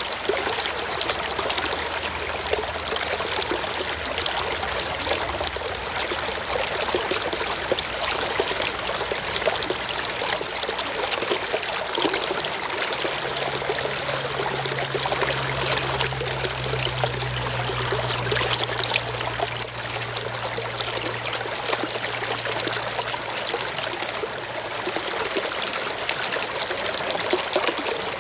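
Stream water flowing and trickling over stones, a steady even rush.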